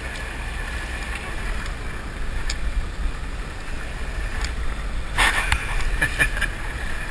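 Motor boat under way: a steady low engine rumble with wind and water noise. A short burst of louder splashing or clatter comes about five seconds in.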